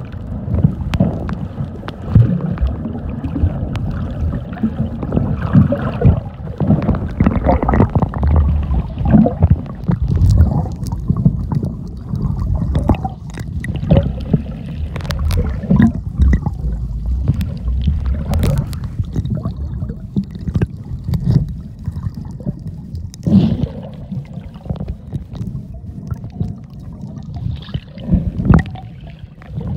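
Water sloshing and gurgling with a constant low rumble and scattered clicks and knocks.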